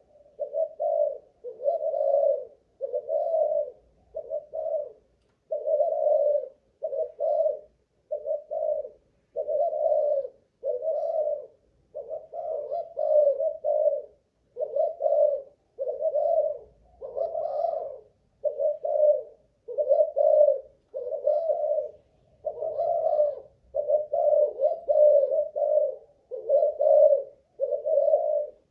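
Spotted dove (cu gáy) cooing over and over, short phrases about one a second with brief gaps, without let-up. It is a long run of song: the staying power that fanciers test in a Malaysian-bred decoy dove.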